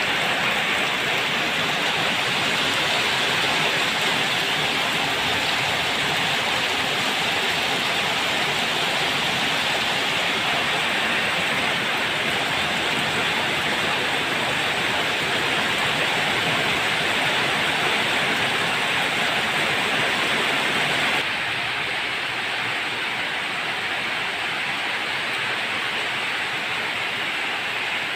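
Steady rushing noise of water from heavy rain and runoff, with no tones or separate strikes in it. It drops a little in level about 21 seconds in.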